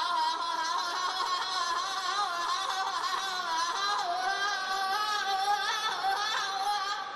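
High, wavering wordless vocal wailing, several pitched lines overlapping and sliding without a break.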